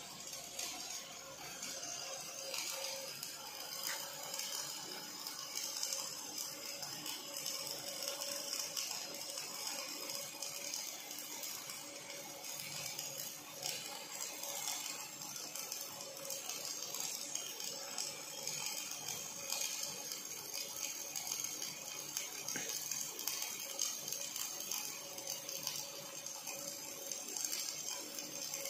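OTC welding robot's MIG arc burning continuously on steel: a steady hissing crackle over a faint steady hum.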